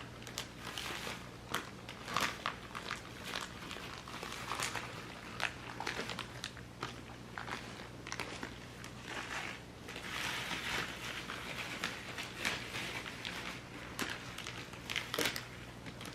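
Dry cake mix being poured out of its plastic bag into a baking dish: irregular crinkling and rustling of the bag, with a faint steady hum underneath.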